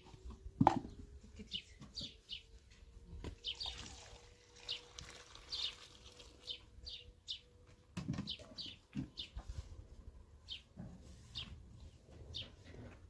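Small birds chirping over and over in short high calls, about two a second. Water is poured from a plastic jerrycan, with a few knocks of the can; the loudest knock comes about a second in.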